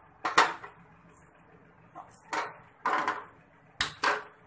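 Several sharp knocks and clinks of kitchen utensils against cookware, a handful of separate strikes with quiet between them.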